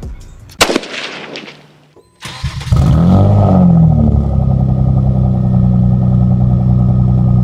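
A sharp hit, then about two and a half seconds in a vehicle engine starts, its pitch swinging briefly before it settles into a steady, loud idle.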